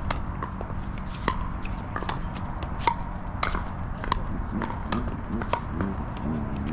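Pickleball rally: paddles hitting the hollow plastic ball and the ball bouncing on the hard court, a run of sharp pocks about two a second, unevenly spaced.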